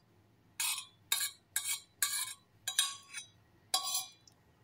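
Metal spoon scraping thick oatmeal and corn porridge off a metal pot into a ceramic bowl: about six short scrapes and clinks, roughly one every half second.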